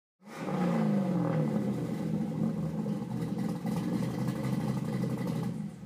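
A car engine running steadily, coming in suddenly just after the start, with a brief shift in pitch about a second in.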